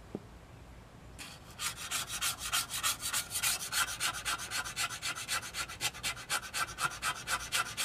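A razor blade scraping rust off a steel handsaw plate in quick, short back-and-forth strokes, about five a second, starting about a second in.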